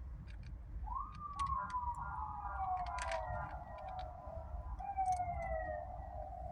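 Emergency-vehicle siren wailing, its tone rising quickly then falling slowly over a few seconds, starting about a second in and again near five seconds, over a low rumble and scattered sharp clicks.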